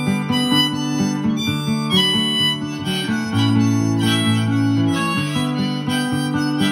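Harmonica playing an instrumental break in a folk song, with strummed acoustic guitar accompanying it.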